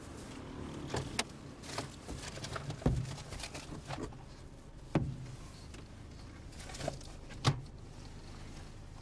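Handling noises inside a car as two people search for a receipt: scattered sharp clicks and knocks with some rustling, the loudest about three seconds in and near the end, over a low steady hum.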